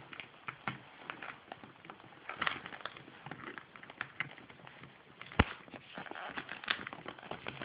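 Handling noise: scattered light clicks and taps with soft cloth and bag rustling as the battery leads of a homemade electric balloon pump are fumbled into place, with one sharp click about five seconds in. The pump motor is not running.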